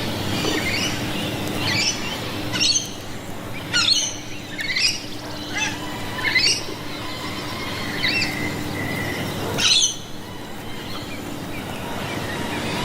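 Birds squawking: a series of about eight loud, harsh calls a second or so apart, over a steady low hum.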